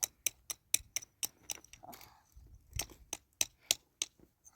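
A quick, irregular series of sharp clicks or snips, a few a second, with one or two soft low thuds among them.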